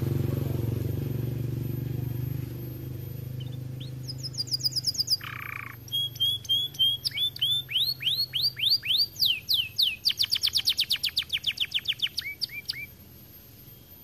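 Domestic canary singing a song of fast rolling trills, each phrase a quick run of rising or falling whistled notes, starting about four seconds in and ending a second before the close. A low hum fades away over the first couple of seconds.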